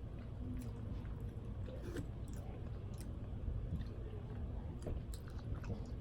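Close-up chewing and biting of someone eating chicken wings, with scattered small wet clicks of the mouth over a steady low rumble.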